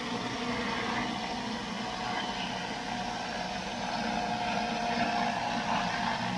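An engine running steadily at a constant speed, with an even hum and no changes in pitch.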